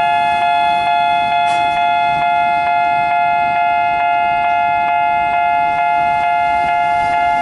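Platform departure bell at a Japanese railway station ringing steadily and loudly, with a metallic, slightly pulsing tone. It signals that the waiting train is about to leave.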